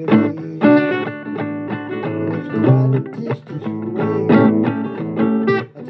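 Guitar playing a blues tune, a steady run of plucked notes and chords.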